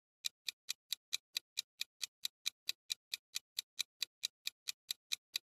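Countdown-timer sound effect: a clock ticking quickly and evenly, about four to five ticks a second, starting a moment in, marking the time left to answer a quiz question.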